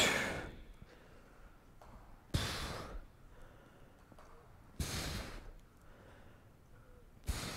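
A woman's hard exhalations, one with each pull of a TRX low row, four in all about two and a half seconds apart, each starting sharply and trailing off.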